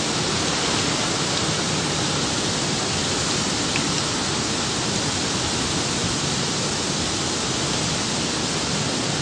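Tropical-storm wind and heavy driving rain, a steady unbroken rush of noise.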